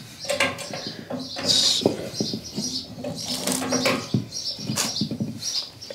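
Scattered knocks, clunks and light clatter of parts and tools being handled, with a few sharper knocks about two and four seconds in.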